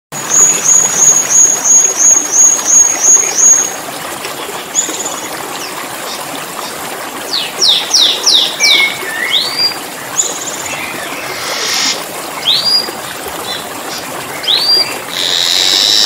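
Asian glossy starling (cucak keling) calling: a fast run of about a dozen short high chips for the first four seconds, then a mix of quick downward-sweeping notes, rising whistles and harsh buzzy calls. A steady trickle of water runs underneath.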